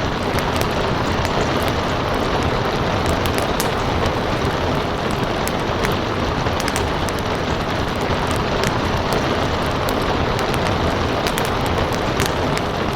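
Steady rain hissing, with a wood fire crackling over it in scattered sharp pops.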